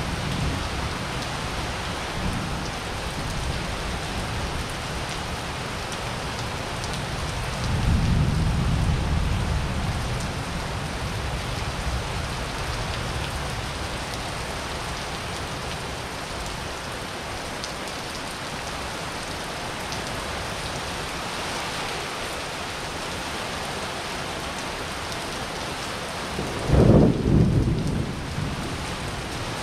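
Steady rain falling on a paved courtyard. Thunder rumbles about eight seconds in, and a louder, closer thunderclap comes near the end.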